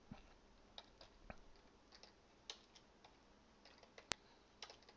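Faint, irregular keystrokes on a computer keyboard as a word is typed, with one sharper click about four seconds in.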